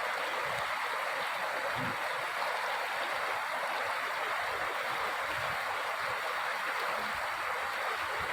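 Running stream water rushing and splashing steadily, with a few faint low thumps now and then.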